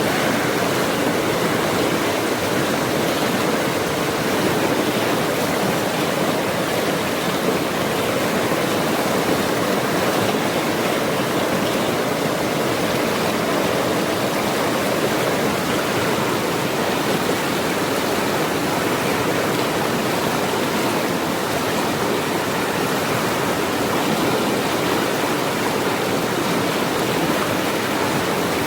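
Forest stream water rushing steadily, an even, unbroken wash of flowing water.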